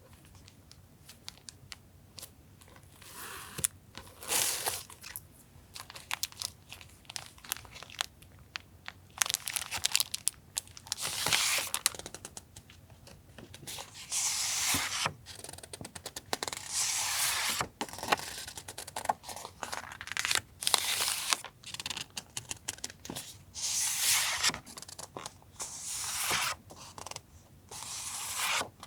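Paper being torn and crinkled by hand: a series of tearing and rustling strokes lasting a second or two each, with small taps and rustles of paper between them.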